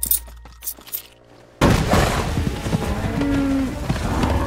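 Film soundtrack: a few sharp knocks over a low rumble, then about a second and a half in, music and sound effects come in suddenly and loud and keep going.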